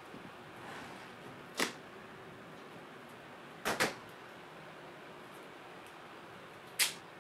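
A few brief knocks and clicks from hands handling the electric skateboard and its parts on a table: one about a second and a half in, a quick double knock near the middle, and one near the end, over a faint steady hiss.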